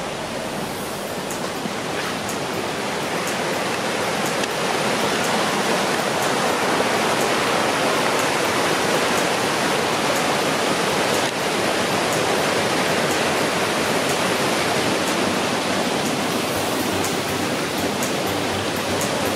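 Creek water rushing and cascading over rocks, a steady rush that grows louder over the first few seconds.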